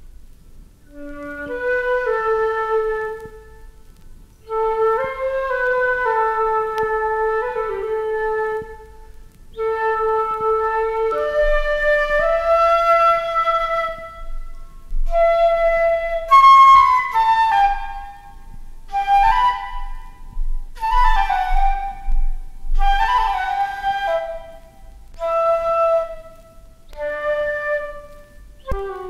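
A solo flute playing a slow melody in separate phrases, with no drums or bass underneath. In the second half the line climbs higher and the notes become shorter and more detached.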